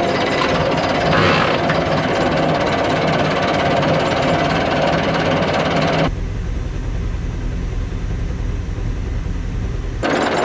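Old Landini tractor's diesel engine running, heard from the open driver's seat while the front loader lifts a big bag of fertilizer, with a brief hiss about a second in. About six seconds in the sound cuts to a duller, deeper engine rumble.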